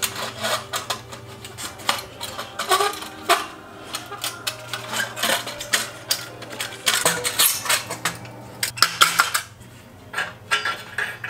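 Harley Sportster exhaust pipes, heat shields and a hose clamp being handled: irregular metal clinks and clanks as the clamp and shields knock against the pipes, over a steady low hum.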